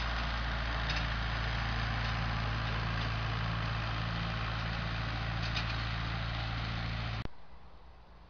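Leyland tractor engine running steadily while pulling a hay tedder through cut grass. The sound cuts off abruptly about seven seconds in, leaving only a faint background.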